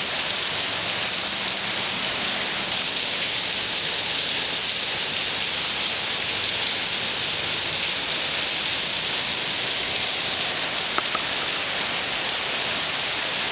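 Steady, even hissing noise with no pitch or rhythm, with a couple of faint ticks near the end.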